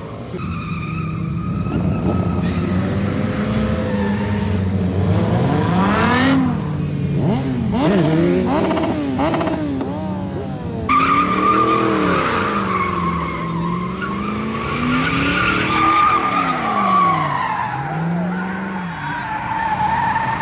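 A car doing donuts: the engine revs up and down over and over while the tires squeal. The squeal grows louder and steadier about halfway through.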